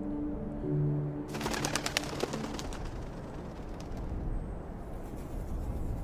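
Soft ambient music that cuts off about a second in, giving way to outdoor natural ambience with birds calling. A quick run of chirps comes right after the music stops.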